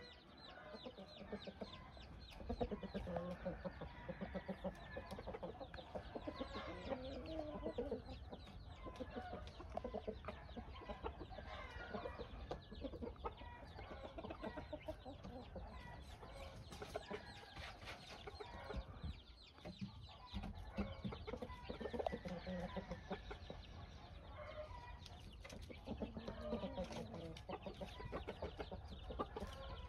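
Gamefowl chickens clucking, many short calls overlapping in a continuous irregular chatter.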